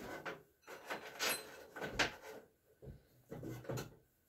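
Scattered clinks and knocks of small metal parts being handled: bolts and washers being picked up for refitting a mower blade, about half a dozen sharp strikes in four seconds.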